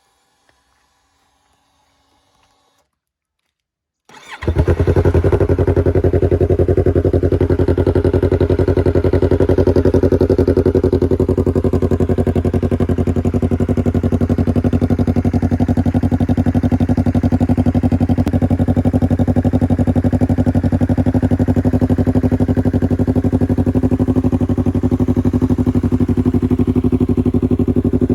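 Yamaha R3 motorcycle's 321 cc parallel-twin engine starting about four seconds in, then idling loud and steady.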